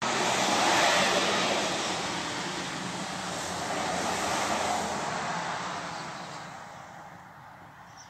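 A passing vehicle's tyre and road noise, loudest about a second in and fading away over the following seconds.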